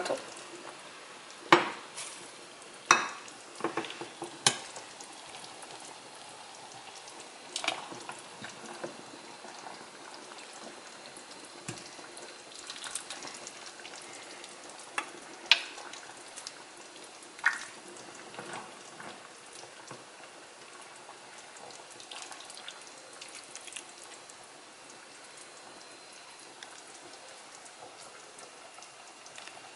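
Metal ladle scooping soup from a stainless steel pot and pouring it into a ceramic bowl: sharp clinks of the ladle against pot and bowl, several in the first few seconds and a few more around halfway, over a faint steady hiss.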